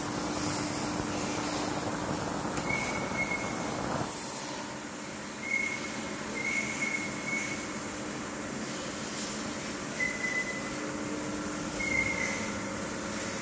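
Crankshaft grinding machine running as it regrinds a Ford V8 crankshaft: a steady machine noise with a constant high whine and short high squeals several times. A louder rushing noise cuts off suddenly about four seconds in.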